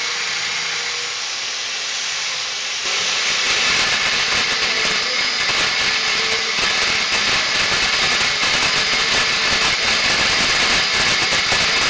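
A power tool grinding metal off a snowmobile counter sprocket, a steady hissing grind that gets louder about three seconds in as the cut bites harder.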